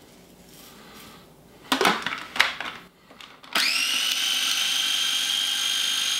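A few plastic clicks and knocks as the lid goes onto a KitchenAid mini food processor. About three and a half seconds in its motor starts with a quick rising whine, then runs at a steady high whine, grinding brown sugar and spices into a fine powder.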